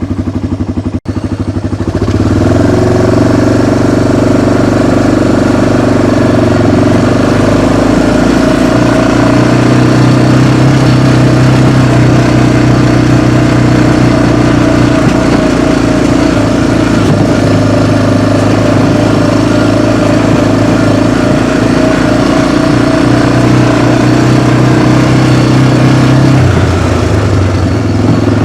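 Engine of the small vehicle she is riding, running steadily under way; it picks up about two seconds in and eases off near the end.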